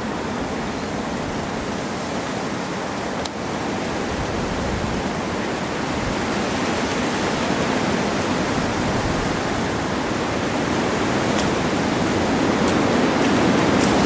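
Steady outdoor rushing noise that grows slowly louder, with a faint click about three seconds in.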